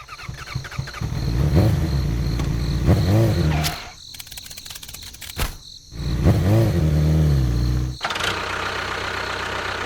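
A motor revving, its pitch rising and falling in two bursts with a sudden cut between them, then running steadily with a hissy, rougher sound near the end.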